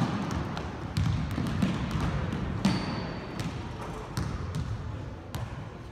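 Basketballs bouncing irregularly on a hardwood gym floor as several players dribble, with a short high squeak about three seconds in.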